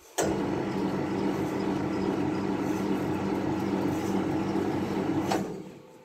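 Sawmill machinery motor running steadily with a low hum, cutting in abruptly and stopping after about five seconds.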